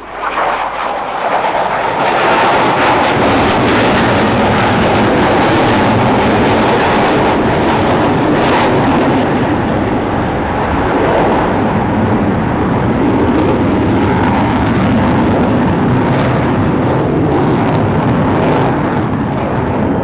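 Jet engine noise from a formation of F-16 Fighting Falcon fighters breaking away in a tactical break. It is a loud, dense rumble that swells over the first two seconds and then holds steady.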